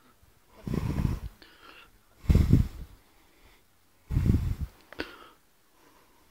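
Air buffeting the handheld microphone in three short, low rumbling puffs about a second and a half apart, with a small click near the end.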